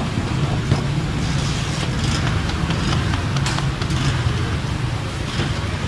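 Steady low rumble of street traffic, with a few short slaps as paratha dough is flattened by hand.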